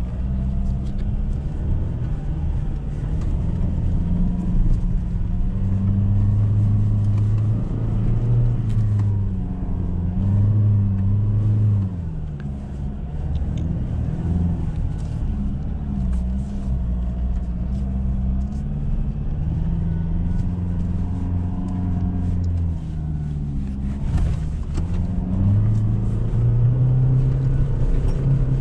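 A Ford Ranger pickup's engine heard from inside the cabin while driving over desert sand, its note rising and falling repeatedly as the throttle is pressed and eased. Scattered clicks and knocks run through it.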